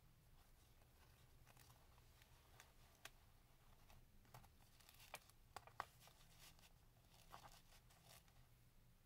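Near silence with faint paper rustling and a few light clicks as a handmade junk journal is opened and the tags in its page pocket are handled.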